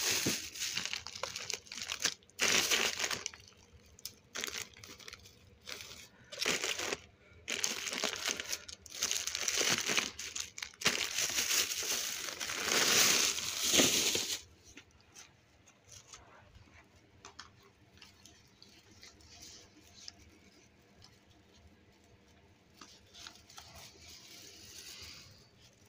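Thin plastic grocery bags and food packaging rustling and crinkling as a hand rummages through them, in loud irregular bursts for about the first fourteen seconds. After that only faint, scattered rustles.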